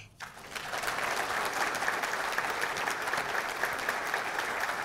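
Audience applauding, a dense steady clapping that builds within the first half second.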